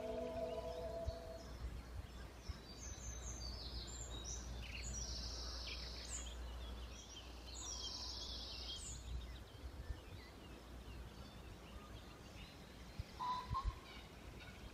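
Soft music fades out in the first second or two, leaving a faint outdoor ambience with a low rumble. Birds chirp in short, high calls between about three and nine seconds in.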